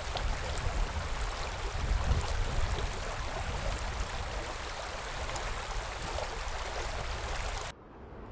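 Shallow, stony river running steadily over rocks, a continuous rushing and babbling of water that stops abruptly near the end.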